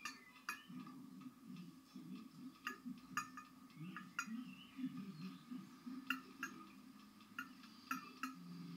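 Kitchen utensils clinking against dishes: about a dozen light, sharp clinks at irregular intervals, with a faint low hum underneath.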